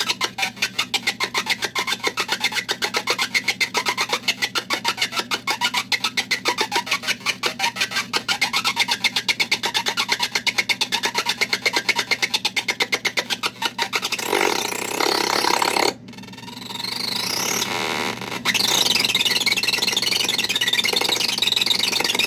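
Circuit-bent electronic sound-effects toy putting out a fast, stuttering train of pulses for about fourteen seconds, then a burst of noise, a short cut-out, and glitchy noise with wavering, sweeping tones, all over a steady low hum.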